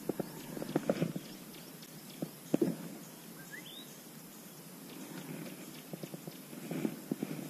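Scattered light clicks and knocks of fishing tackle being handled in a boat while a drop-shot rig is tied. There is a short rising whistle about three and a half seconds in.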